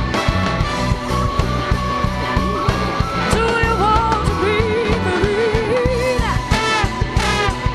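A rock band playing live, with a steady drum beat, bass and guitar, and a wavering vocal melody coming in about three seconds in.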